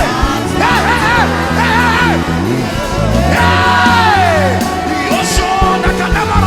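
Live gospel worship band playing under a solo singer's wordless ad-libs: a few short wavering notes with vibrato, then a long held note that slides down in pitch.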